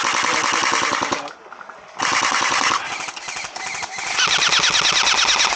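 Airsoft rifles firing rapid full-auto bursts: a burst of just over a second, a short pause, then more bursts, the loudest near the end.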